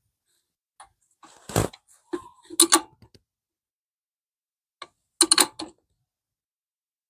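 Ratchet wrench clicking in three short bursts as a 9/16 nut is tightened, with metal tool clinks.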